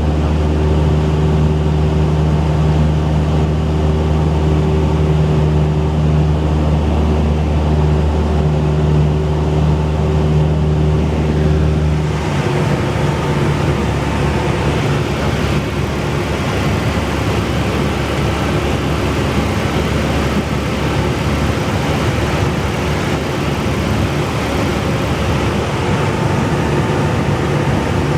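Cessna 172's piston engine and propeller droning steadily in flight. About twelve seconds in, the sound changes abruptly from an even, humming drone to a rougher, noisier one.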